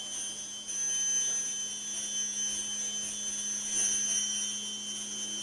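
Improvised percussion held as a sustained drone: a steady low hum under high, ringing tones that swell and fade slowly.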